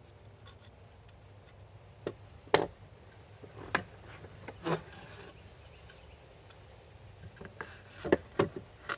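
A few scattered light knocks and rubs of wood on wood, as boards and a hand plane are handled and set down on the workbench.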